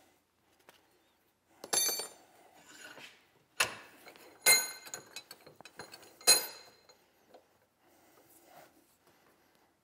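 Four sharp metal clinks, each with a short bright ring, as a steel revolver frame, its grip frame and hand tools knock against a bench vise; between the clinks it is nearly quiet.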